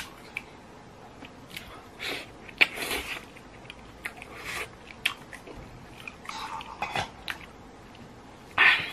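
Close-up eating sounds of instant noodles: chewing and slurping, with chopsticks clicking against a metal bowl. There are short scattered clicks and a few louder slurp-like bursts, the strongest about two and a half seconds in and again near the end.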